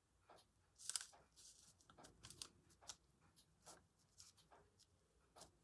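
Faint, irregular scratchy strokes and rustles of paper being handled and drawn over by hand.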